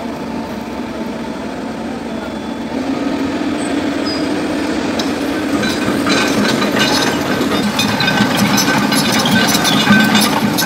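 Diesel engines of a dump truck and excavators running in a steady drone that grows louder about three seconds in, with rapid metallic clinks and clanks from about six seconds in.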